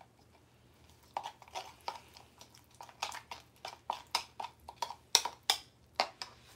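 A metal spoon clinking against a drinking glass while stirring: an irregular run of sharp clinks, several a second, starting about a second in.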